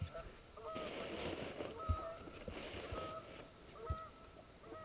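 Geese honking faintly, one short honk about every second, with a soft hiss for a couple of seconds and a few low knocks.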